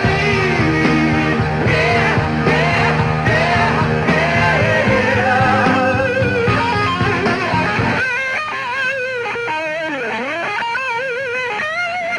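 Rock band playing live, a male lead singer over electric guitar, bass and drums. About eight seconds in, the band drops out and a lone electric guitar carries on with wide vibrato, diving deep in pitch and back up near ten seconds.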